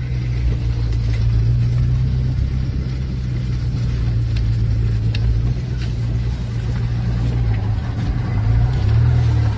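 Inside a moving car: a steady low engine and road drone. The drone dips and rises again near the end as the car slows and picks up speed.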